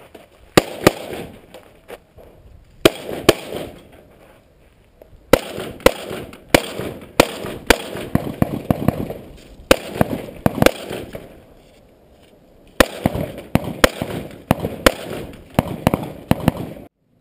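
Rifle gunfire: sharp shots in quick pairs and longer strings with short pauses between, each shot echoing briefly. The shots stop shortly before the end.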